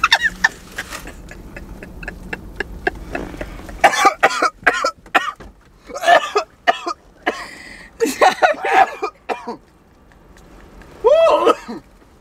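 A woman laughing hard in a string of breathy, cough-like bursts with short gaps between, and another laugh near the end.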